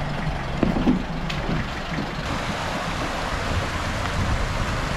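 Toyota pickup's engine running at low speed as it crawls through a shallow, rocky river, over the steady rush of the stream's water.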